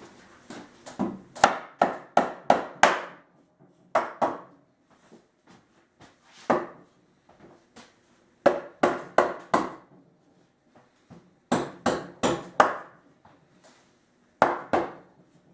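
Rubber-headed mallet tapping softwood table legs into place: sharp wooden knocks in quick runs of about four or five, with pauses between the runs.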